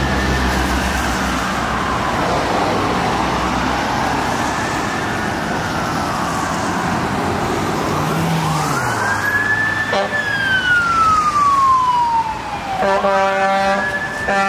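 Fire truck siren on a slow wail, rising and falling about every four to five seconds. Near the end an air horn blasts over the siren.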